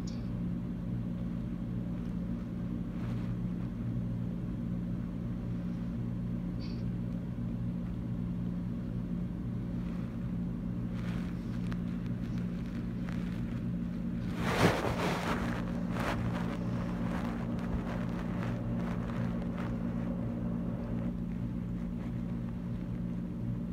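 Steady low background hum, with a brief rustling noise about fifteen seconds in and a few faint ticks.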